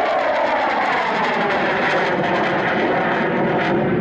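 Polish Air Force MiG-29's twin Klimov RD-33 turbofan engines running loud as the jet flies past overhead. It is a dense, steady jet noise whose pitch slowly falls as the aircraft moves away.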